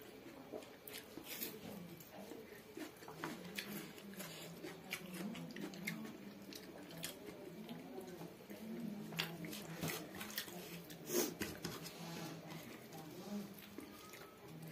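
Close-miked eating sounds: wet chewing, lip smacks and mouth clicks as rice and pork are eaten by hand, with fingers squishing through the rice. They come at irregular intervals, with one sharper click about eleven seconds in.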